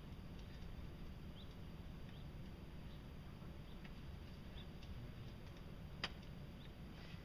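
Quiet outdoor ambience: a steady low rumble with scattered faint short high chirps, and one sharp click about six seconds in.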